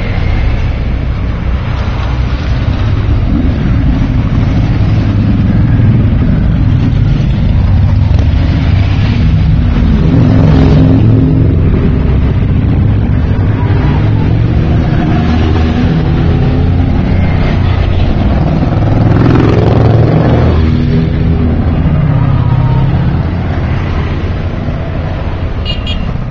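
A long line of motorcycles riding past one after another, their engines running without a break and growing louder as bikes pass close, loudest about ten and again about twenty seconds in.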